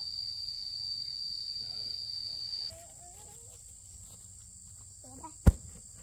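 Insects trilling in a steady high tone, which switches abruptly to a higher, fainter tone about three seconds in. A single sharp click comes near the end.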